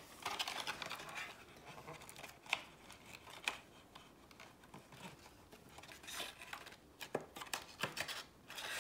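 Faint rustling and a few separate sharp clicks of packaging and small camera accessories being handled on a table.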